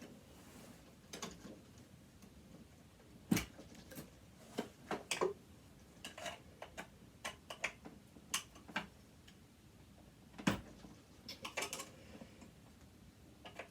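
Irregular clicks, taps and small knocks of tools and metal parts being handled while dismantling a sewing machine, with two louder knocks about three seconds in and near ten seconds in.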